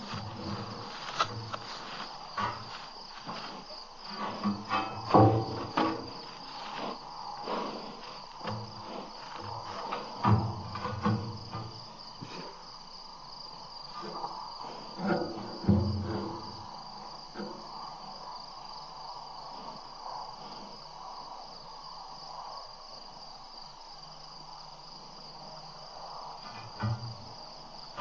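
Crickets chirring steadily at night. Over them come irregular close bumps and scraping knocks at the microphone, heaviest in clusters about five, ten and fifteen seconds in.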